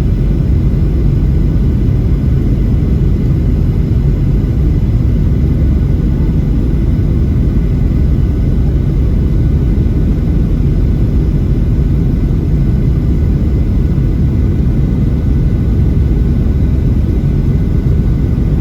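Steady, loud cabin rumble inside a Boeing 737-700: airflow and engine noise with a faint steady whine above it, unchanging throughout.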